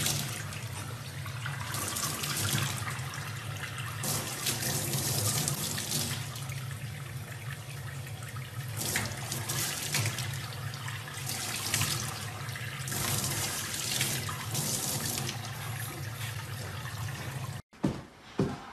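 Water running from a tap into a stainless steel sink, splashing unevenly as a young chimpanzee plays in the stream. It cuts off suddenly near the end, and a couple of short knocks follow.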